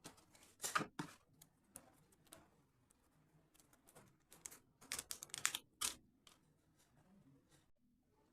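Short clicks and rustles from hands handling the Bluetooth headphones and their packaging, in two clusters, about a second in and around five seconds in, then fading to faint handling sounds.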